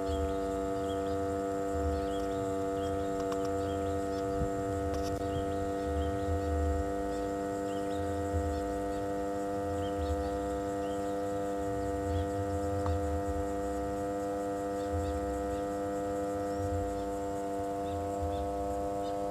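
A steady electronic drone: a chord of many held tones that stays unchanged throughout, over a soft, slowly pulsing low rumble.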